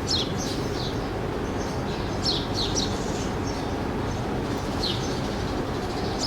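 Small birds chirping: short downward-sweeping chirps in a few clusters, over a steady rushing background noise.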